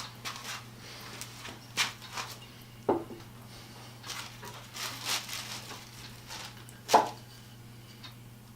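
Wooden vise handle and end stop being handled on a workbench: scattered light wooden knocks and clicks, two sharper ones about three and seven seconds in, the second the loudest, over a steady low hum.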